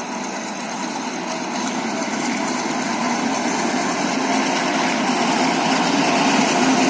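A train approaching through the station: a steady mechanical rumble and rail noise, growing gradually louder.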